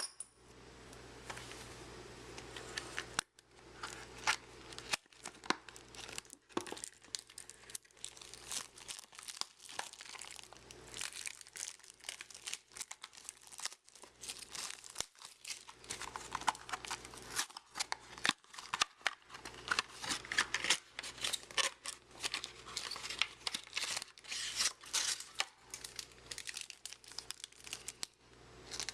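Trading card pack wrapper being torn open and crinkled by hand, a long run of irregular crackling and tearing with many sharp snaps.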